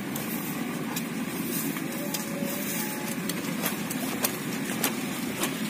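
Wind buffeting the microphone, with the large cloth sail of a pegon kite rustling close by and giving a few sharp snaps.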